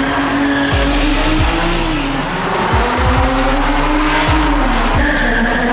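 A car doing a burnout: its engine held at high revs while the tyres squeal and spin, in an enclosed parking garage.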